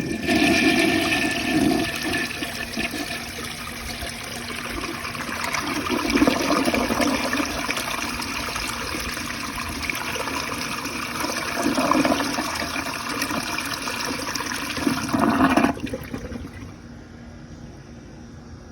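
A 1965 Rheem Claymore toilet flushing with the seat lid down, which gives it an echo: a click of the handle, then about fifteen seconds of rushing water that ends in a last surge and cuts off. A quieter hiss follows as the tank refills.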